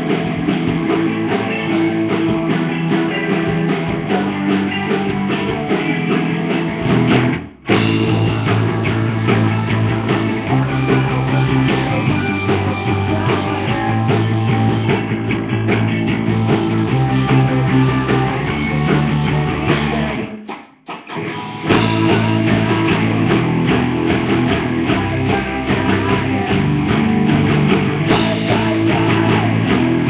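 Rock band playing a song at a sound check: guitars over a drum kit. The music breaks off briefly twice, about seven and about twenty seconds in.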